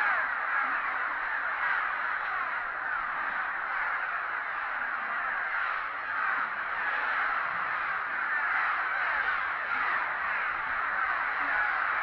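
A large colony of cliff swallows calling all at once: a dense, continuous chatter of many short, harsh notes overlapping from birds circling close around. It is a colony stirred up by a disturbance at its nests.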